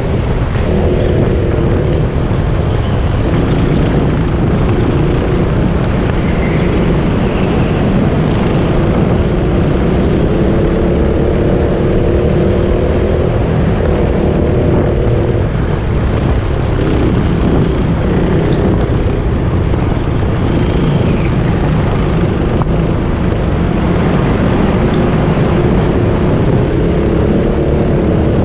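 Onboard sound of a racing go-kart at speed: its motor buzzes steadily, the pitch rising and falling as it brakes and accelerates through the corners, over a loud low rumble of wind and track noise.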